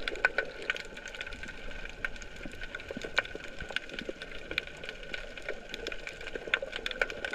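Underwater sound picked up by a submerged GoPro: dense, irregular clicking and crackling over a steady high hum.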